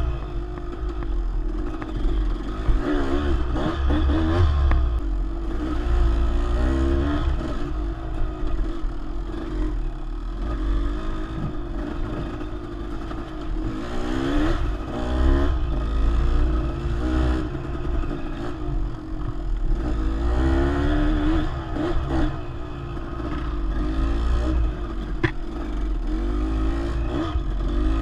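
Dirt bike engine running on a trail ride, its pitch climbing and dropping again and again as the throttle is opened and closed.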